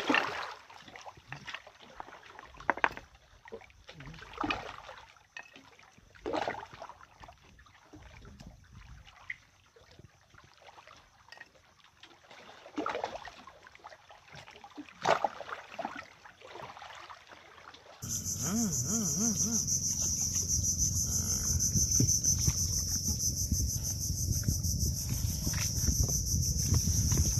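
Scattered scrapes and taps as grilled seashells are poked and pried open on rock with a small tool. After about 18 seconds there is a steady high-pitched insect drone over a low steady rumble.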